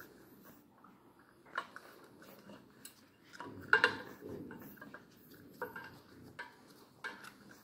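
French Bulldog puppy gnawing a cow hoof: irregular clicks and knocks of teeth and hoof, the loudest cluster coming just before four seconds in.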